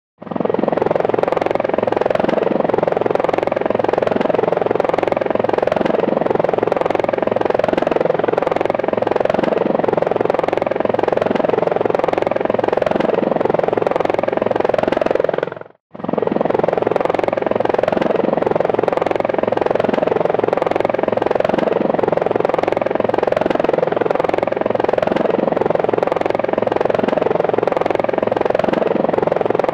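Helicopter hovering: a steady rotor beat, with fast even pulses over a dense engine noise. It fades out and starts again about halfway through.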